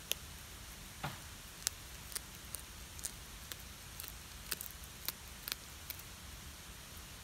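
A calico cat chewing and crunching a small river fish, bones and all: sharp, irregular crunches, a few a second at times, over a faint steady hiss.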